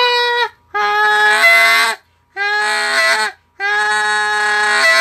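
Canada goose call blown in four long, steady, buzzy notes: the buzz that the train note starts from. The first note ends about half a second in, and the last carries on past the end.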